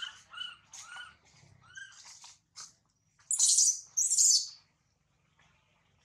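Newborn macaque giving short, thin, bird-like calls for its mother, four in about two seconds, each rising then falling in pitch. About halfway through come two louder hissing rustles.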